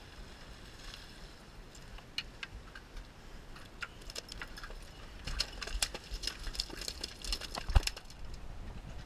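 A freshly gaffed yellowfin tuna is hauled over the boat's rail and beats its tail against the deck. The sound is an irregular clatter of knocks that starts about two seconds in and grows quicker and denser, with one heavy thump near the end.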